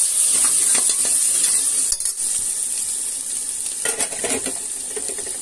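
Onions, green chillies, coriander and mint leaves sizzling in hot coconut oil in a metal pot, with a steel spoon stirring and scraping against the pot several times, the strongest scrapes about four seconds in.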